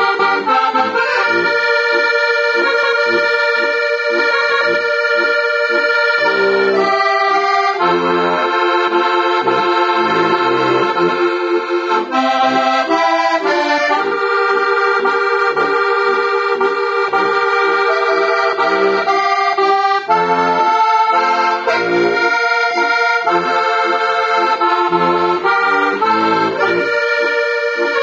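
C/F heligonka (diatonic button accordion) playing a folk tune: a melody over sustained chords, with short bass notes keeping an even beat underneath.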